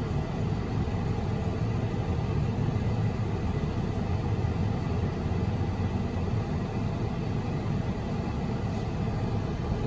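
Steady low vehicle rumble heard from inside a car's cabin while it sits in slow traffic, with no distinct knocks or horns.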